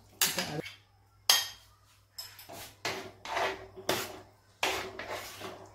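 Metal spoon scraping cooked sago out of a glass bowl into a steel pot, with a sharp knock against the bowl about a second in, then a spoon stirring the pot in several short scraping strokes against the steel.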